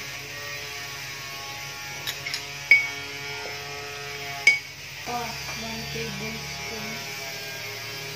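A few sharp clinks of a glass bowl and a metal spoon against a ceramic dish, the two loudest about two seconds apart, over a steady background hum.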